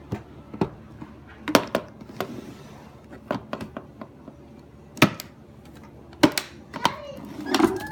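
Sharp clicks and knocks, about eight of them at irregular intervals, from a typewriter's carrying case and its latches being handled.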